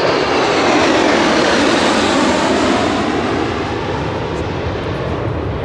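Formation of four AMX jets passing overhead, their Rolls-Royce Spey turbofans making a loud, steady jet rush. A faint whine falls in pitch as they pass, and the noise eases slightly toward the end.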